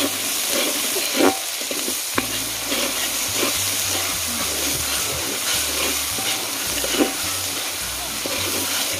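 Chilli spice paste frying in plenty of oil in a wide metal wok, a steady sizzle, the paste already fried until the oil separates. A metal ladle stirs and scrapes through it, with a few sharper knocks against the pan about one, two and seven seconds in.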